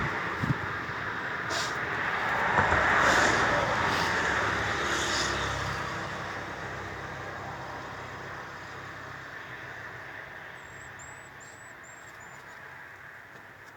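A motor vehicle's noise fading away over several seconds, with a few knocks early on and a short run of faint high chirps near the end.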